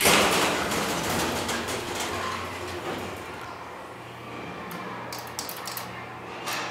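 Elevator car doors sliding, with a sudden loud start and then a rumbling slide that dies away over about four seconds. A steady low hum runs underneath.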